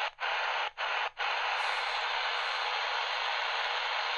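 Tecsun PL-380 portable radio's speaker giving out medium-wave static hiss. The static cuts out briefly a few times in the first second as the radio is tuned up in steps, then holds steady on an empty frequency whose usual station seems to be off the air.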